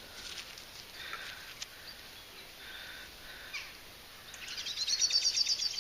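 A small songbird singing: a few faint high notes, then a fast trill of rapidly repeated high notes over the last second and a half.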